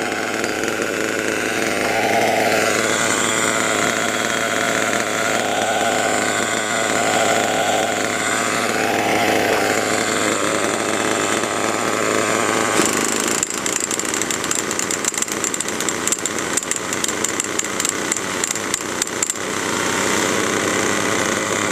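Twin small two-stroke nitro glow engines of a HotBodies Lightning GTX2 RC truck running together, the pitch rising and falling with throttle blips. About two-thirds of the way through the running turns choppy and uneven.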